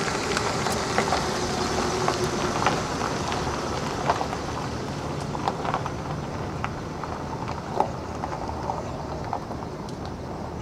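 A car rolling slowly across a gravel lot: a steady rush with scattered crunching clicks from the tyres on the stones.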